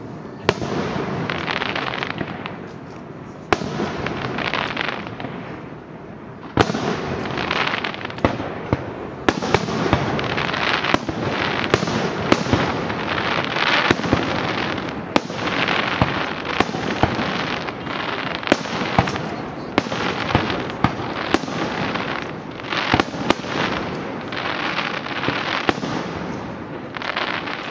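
Aerial fireworks display: many shells bursting in quick succession, sharp bangs over a continuous crackle and hiss of falling stars, with a brief lull about five seconds in before the bursts pick up again.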